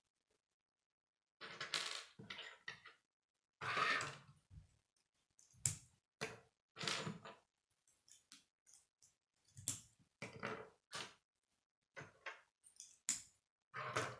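K'nex plastic rods and connectors being handled, snapped together and set down on a wooden tabletop: irregular clicks and clatters, with a couple of longer rattles in the first few seconds.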